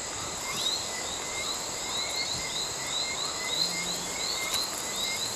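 Tropical night chorus: a steady high drone of insects with short rising chirps from small frogs, repeating two or three times a second.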